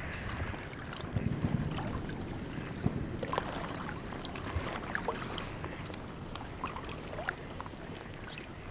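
People wading through shallow floodwater among trees, with rhythmic sloshing and small splashes from steps in the water and a few low thumps about a second in.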